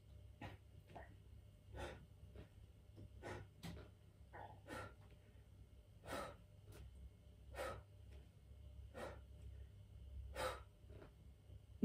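A man breathing hard with effort during a floor leg-raise exercise: a sharp breath about every second and a half, with softer breaths between, over a low steady hum.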